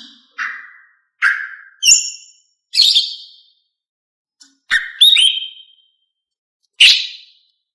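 Female greater green leafbird (cucak ijo) giving short, sharp call notes about once a second, with a pair of quick downward-slurred notes about five seconds in. This female call is used to stir male leafbirds into song.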